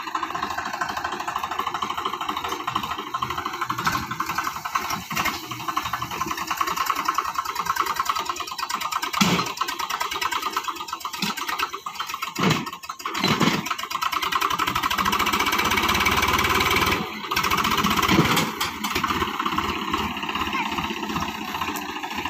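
Swaraj 735 FE tractor's three-cylinder diesel engine running under load as the tractor pushes through dense bushes, with a few sharp knocks around the middle. The engine gets louder for a couple of seconds a little past two-thirds of the way through.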